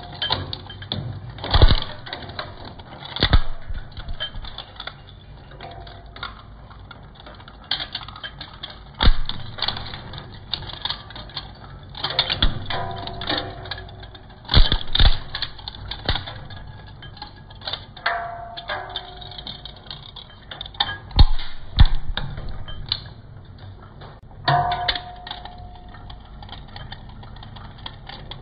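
Twin-shaft shredder's steel cutting discs crunching ballpoint pens: irregular loud cracks and snaps of breaking plastic and metal over the steady hum of the motor, with a couple of short squeals.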